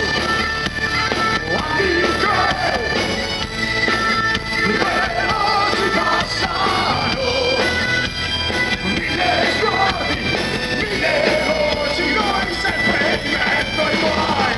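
Live folk-metal band playing loud, with bagpipes over drums and electric guitar.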